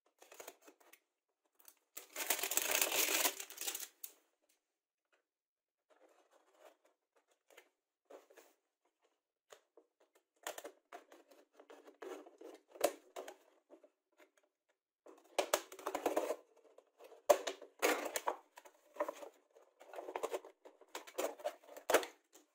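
Utility knife slicing through a thin plastic milk bottle, with the plastic crackling and crinkling as it flexes. One long loud cut comes about two seconds in, then a run of shorter cuts and crinkles with sharp clicks through the second half.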